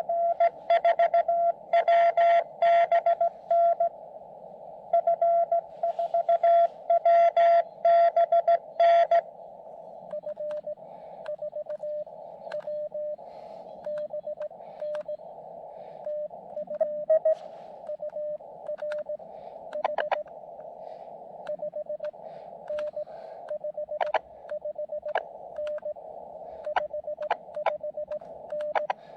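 Morse code (CW) from a portable amateur radio transceiver: a loud keyed tone for about the first nine seconds, then a fainter, slightly lower-pitched keyed tone over the receiver's narrow band of hiss. This is the to-and-fro of a CW contact.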